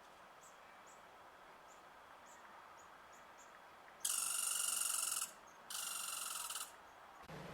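Two loud, buzzy, high-pitched trills of an insect or bird, each about a second long with a short gap between them, over faint high chirps.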